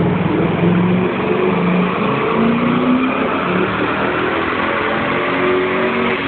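Turbocharged Ford Mustang GT V8 engine running, its pitch shifting up and down.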